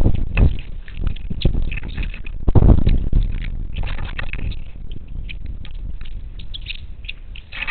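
Strong wind gusting over the microphone as a low rumble that swells and fades, with many short, sharp calls of monk parakeets scattered over it.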